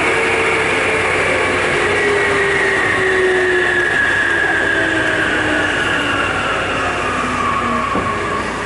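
Keikyu 800 series electric car's traction motors and gears whining with a steadily falling pitch as the train slows, heard from inside the car above the bogie over the rumble of wheels on rail. This set is known to its recorder for an unusual, odd sound when accelerating and braking.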